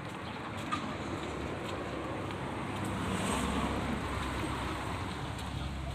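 Street traffic: a steady hiss of vehicles on the road that swells about halfway through as a car goes by, with a low engine rumble in the second half.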